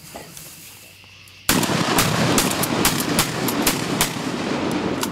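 A volley of shotgun fire: rapid sharp cracks over a loud rushing noise that starts suddenly about a second and a half in.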